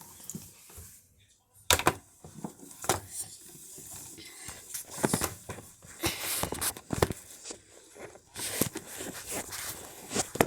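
Irregular clicks, knocks and rustling as small objects are handled.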